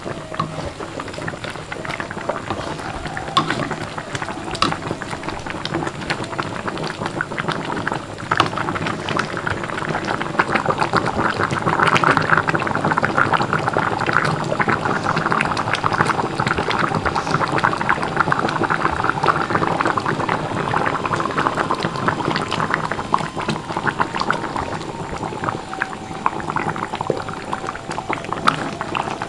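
Pot of coconut-milk curry with raw cassava leaves bubbling at a steady boil. A continuous dense burble and crackle grows louder about a third of the way through.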